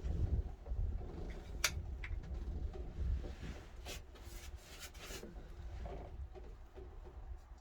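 Rubbing, scraping and a few sharp knocks of handwork in a boat's wooden bilge locker while it is being painted.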